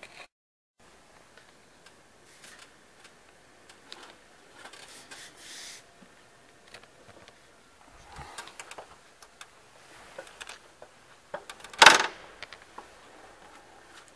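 Faint scattered clicks and light rattles, with one sharp knock about twelve seconds in.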